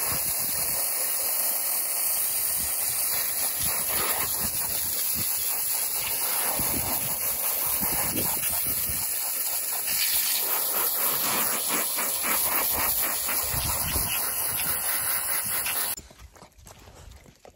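A steady spraying hiss that stops suddenly near the end.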